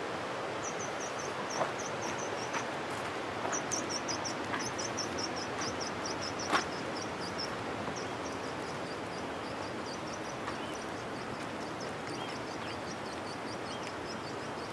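Rural outdoor ambience: a steady hiss with runs of rapid, high-pitched chirping, fading toward the end, and a few sharp knocks, the loudest about six and a half seconds in.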